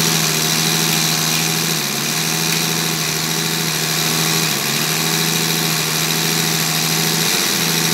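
Diesel injection pump test bench driving a six-cylinder in-line Mercedes injection pump during a calibration test. It gives a steady mechanical hum whose pitch dips briefly about three times.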